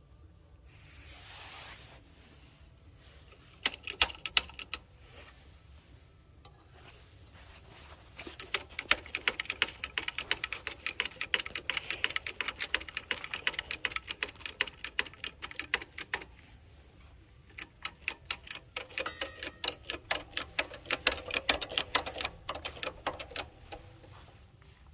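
Hand-tool work on metal: a few sharp clicks, then two long runs of rapid, uneven metallic clicking and clatter, several clicks a second.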